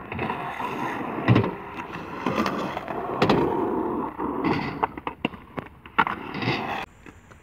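Skateboard wheels rolling with several sharp clacks and knocks of the board along the way; the sound cuts off suddenly near the end.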